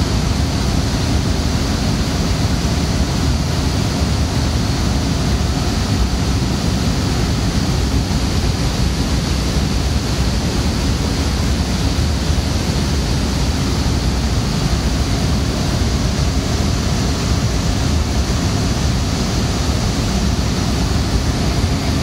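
Fans of running rack servers and data-centre cooling: a steady, very loud rushing hiss with a low hum underneath.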